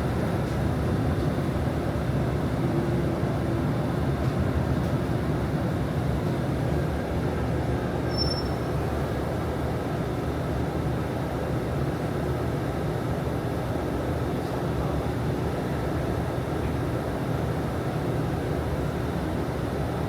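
Steady engine and road rumble heard from inside a moving city bus, even throughout.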